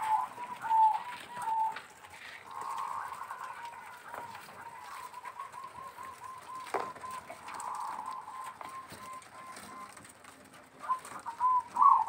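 Zebra doves (perkutut) cooing in strings of short, rapid notes, with louder calls near the end. A single knock is heard about two-thirds of the way through.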